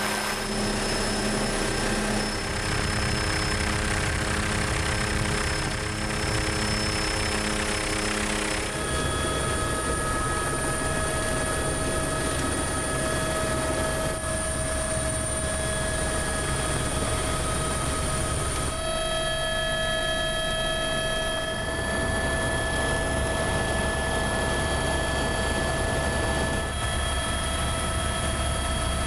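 Helicopter turbine and rotors running steadily: a high whine over dense rotor noise, with a low pulsing in the first stretch. The whine's pitch and the noise change abruptly a few times, about a third and two thirds of the way in.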